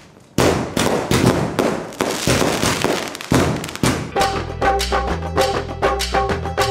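Aerial fireworks bursting overhead, a rapid run of crackling pops. About four seconds in, background music with a steady beat takes over.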